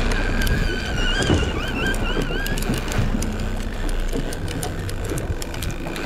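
Boat motor running with wind and water noise. A wavering high tone is heard from about half a second to two and a half seconds in.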